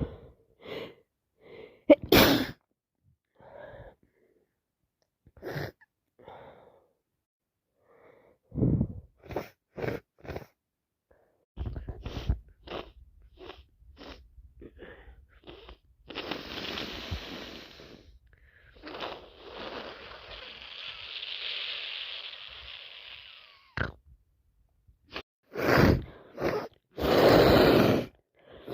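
A person with a head cold sneezing several times and sniffing repeatedly in short bursts. There are two longer breathy, hissing stretches in the middle, and a run of loud sneezes near the end.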